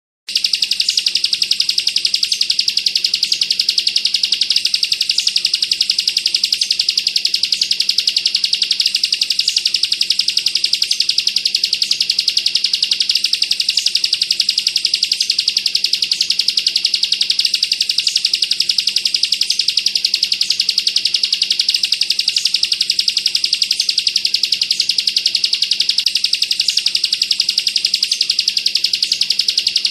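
Bar-winged prinia (ciblek kristal) singing a rapid, unbroken, high-pitched trill, the machine-gun-like 'bren' song, starting just after a brief silence.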